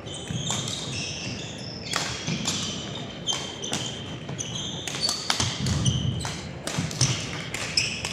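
Badminton doubles rally: rackets striking the shuttlecock in quick succession, with sneakers squeaking on the court floor between the hits.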